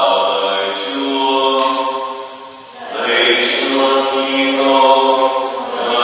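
Slow liturgical chant sung in long held notes. One phrase fades out about two and a half seconds in and the next begins about a second later.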